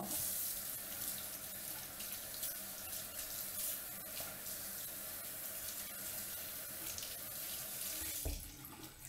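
Water from a tap running steadily into a sink while a microfiber cloth is soaked under it. The flow stops a little after eight seconds in, with a short low thump.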